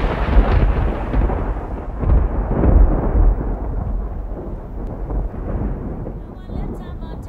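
Thunder rumbling and rolling, swelling again about two to three seconds in, then slowly dying away.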